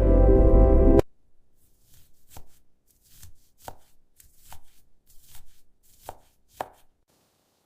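Background music that cuts off abruptly about a second in. It is followed by a knife chopping food on a cutting board: about a dozen separate, uneven strokes, then quiet.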